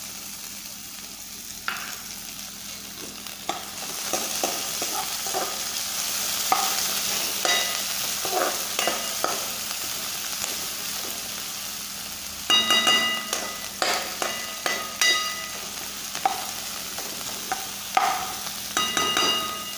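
Chopped capsicum, onion and peanuts sizzling in a metal pan while a metal spoon stirs them, scraping and clinking against the pan. The sizzle grows louder about four seconds in, and ringing clanks of the spoon on the pan come in clusters about two-thirds of the way through and again near the end.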